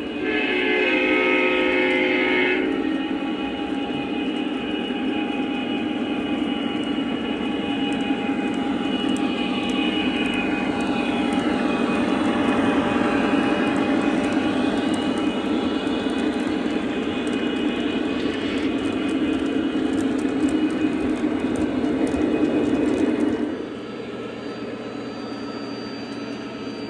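Lionel O-gauge diesel locomotive lashup: a multi-tone diesel horn blast lasting about two and a half seconds, then the steady electronic diesel engine rumble and the rolling of the train over three-rail track. The sound drops off sharply near the end.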